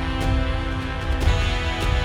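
Background music: a steady beat with sustained chords, the harmony changing about a second in.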